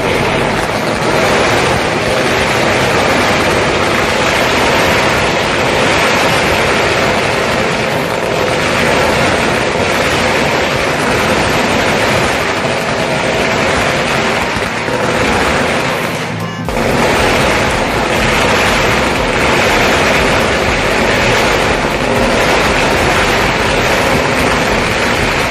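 Dense barrage of firecrackers and fireworks going off without a break, an unbroken rattle of rapid bangs that dips briefly about sixteen seconds in.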